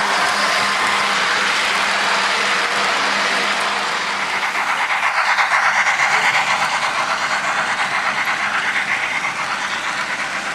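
Electric model train running along its track: a steady mechanical whirring with fast rail clicks. It grows louder with a quick pulsing rhythm in the middle, then eases off.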